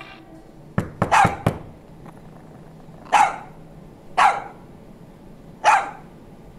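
A dog barking single barks about a second apart, three of them from about three seconds in, after a quick cluster of sharp knocks about a second in.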